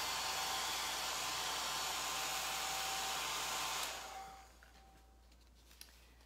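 Handheld hair dryer blowing steadily on a silkscreen chalk transfer to dry the chalk paste, then switched off about four seconds in and winding down.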